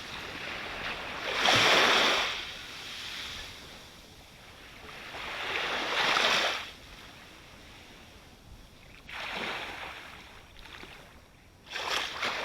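Ocean waves breaking close up on the shore, the surf hissing up and fading away four times, each wave about three to four seconds apart.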